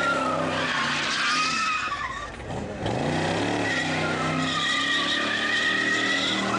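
Chevrolet Corvette C4's V8 revving hard as the rear tyres squeal and skid through smoky donuts. A little after two seconds in, the engine eases off and the squeal drops briefly, then the revs climb back up and the squeal returns.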